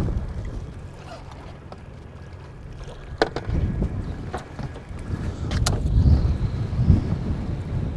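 Strong wind buffeting the microphone in gusts, a low rumble that eases off for a couple of seconds and then builds again, with a few sharp clicks or knocks in the middle.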